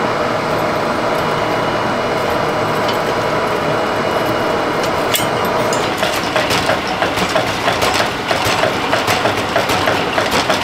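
Forge air blower running steadily, a loud even rush of air with a steady hum, a slight rapid pulsing joining it about six seconds in.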